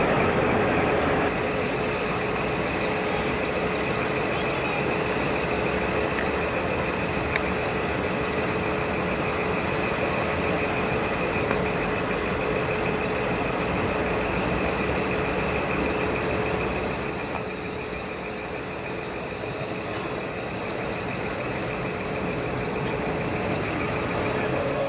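Large Irizar coach idling while parked, a steady engine hum with a constant tone running over it.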